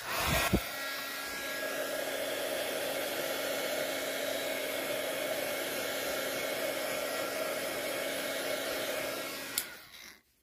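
Handheld heat gun switched on with a click and blowing steadily, a low motor hum under the rush of air, then switched off near the end and running down. It is heating the surface of freshly poured epoxy resin in a silicone coaster mould.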